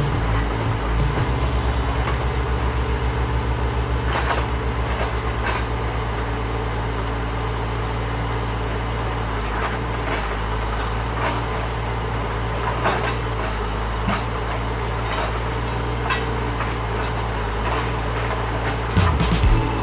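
Steady hum of a radio-controlled construction model's motor running, with scattered clicks and knocks.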